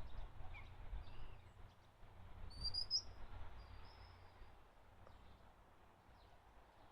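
Small songbirds giving short, high chirps, the clearest about two and a half seconds in, over a low rumble that fades out after a few seconds.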